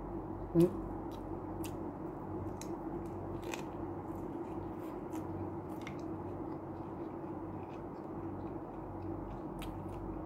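A person chewing and biting food, with scattered small crisp clicks, over a steady low hum.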